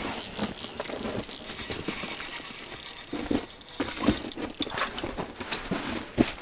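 Fishing reel on an ice rod being handled and cranked: irregular mechanical clicking and ratcheting from the reel, with a few knocks.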